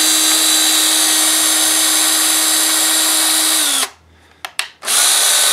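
Electric drill running steadily at full speed, then released about four seconds in, its pitch falling as it winds down. A few clicks and a brief burst of noise follow near the end.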